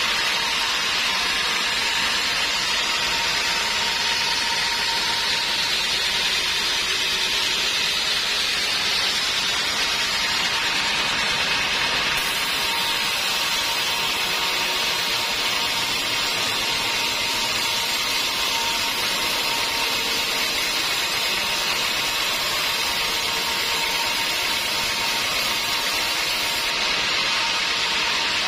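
Band sawmill running, its blade sawing lengthwise through a teak log: a steady, unbroken sawing noise with a constant thin whine over it.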